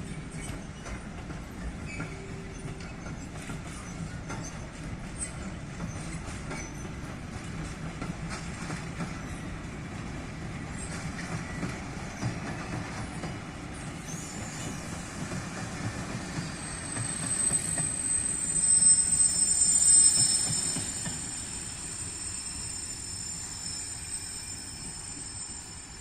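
A train rolling past with a steady low rumble and clicking of wheels over the rails. About two-thirds of the way in, a high-pitched wheel squeal sets in, becomes the loudest sound shortly after, then fades.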